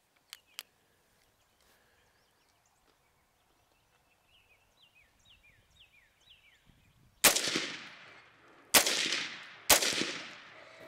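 Three rifle shots from a Smith & Wesson M&P 15 AR-15, each with a long echo tail. The first comes about seven seconds in, then two quicker follow-up shots at running hogs. Faint bird chirps can be heard in the seconds before the shots.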